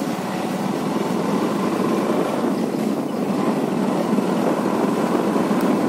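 Motorcycle running steadily while riding along a rough road, with wind and road noise on the microphone.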